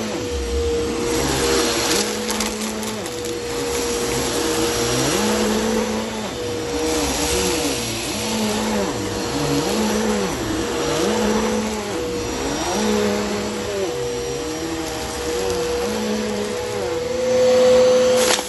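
Bissell Helix upright vacuum cleaner running with a steady motor whine, pushed back and forth over carpet. Its tone rises and dips in a repeating rhythm about every second and a half, and it is loudest near the end.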